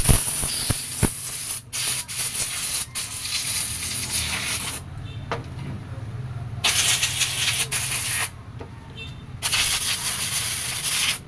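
Compressed-air blow gun blasting dirt and cleaner off the disassembled monoshock's seals and parts: three long hissing blasts with short pauses between them.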